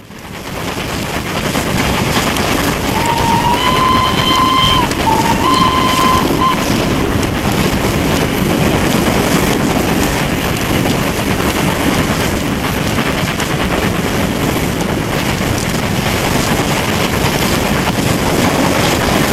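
A steam train running, heard from a carriage window with wind buffeting the microphone. The locomotive's whistle blows twice: a long blast about three seconds in, then a shorter one followed by a brief toot.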